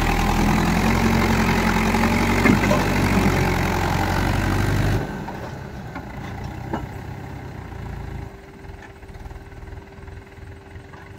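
Mahindra Yuvo 575 tractor's diesel engine running steadily and loudly; about five seconds in the sound drops suddenly to a much quieter engine noise.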